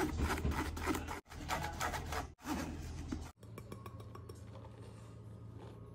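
A metal spoon scraping and rubbing cocoa powder and flour through a fine-mesh metal sieve: quick, scratchy rasping strokes broken by short gaps. In the last couple of seconds it goes quieter as the sifted dry mix is tipped into the bowl of batter.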